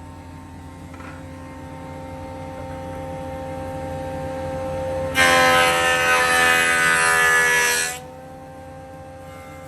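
CNC router spindle running with a steady whine that slowly grows louder. About five seconds in, the surfacing cutter bites into the Granadillo slab, giving a much louder, harsher cutting sound for about three seconds that stops sharply, leaving the spindle whine.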